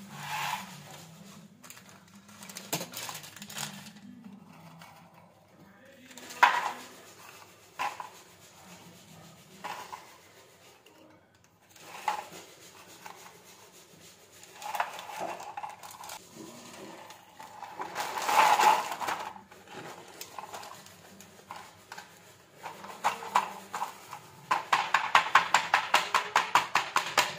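Round plain biscuits being handled and dropped into a plastic zip-lock bag, with scattered rustles, clicks and crinkles. Near the end a wooden rolling pin pounds rapidly on the biscuits in the bag, several strikes a second, crushing them into crumbs.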